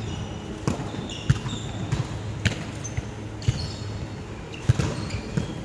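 Volleyball being struck and bouncing on the court, with sharp impacts about every half second to second, and brief high sneaker squeaks on the wooden sports-hall floor.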